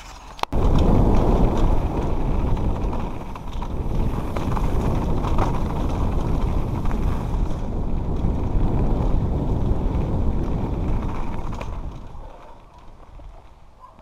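Wind buffeting a helmet-mounted camera's microphone as a downhill mountain bike rides fast down a dirt and gravel trail, mixed with tyre and bike rattle. It starts abruptly with a click about half a second in and eases off near the end.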